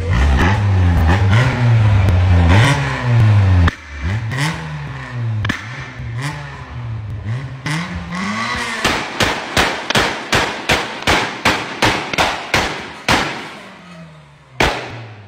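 A first-generation Renault Clio's engine being revved hard in repeated blips, then a fast run of loud exhaust bangs, about three a second, as it backfires, and one last single bang near the end.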